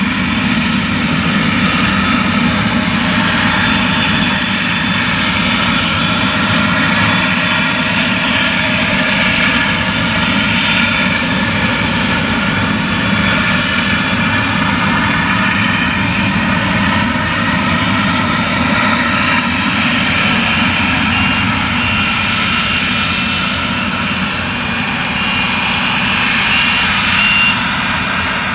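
Claas Jaguar 970 forage harvester's MAN V8 engine running steadily at full working load while it cuts and chops standing maize, a heavy continuous drone.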